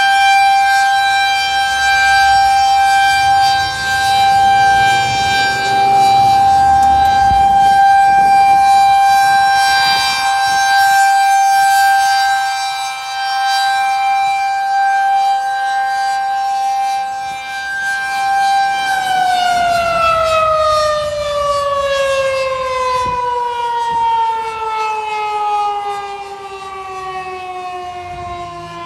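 Federal Signal 2001-SRNB single-tone rotating tornado siren sounding the steady Alert tone, then, about two-thirds of the way through, winding down, its pitch falling steadily as the rotor slows at the end of the signal.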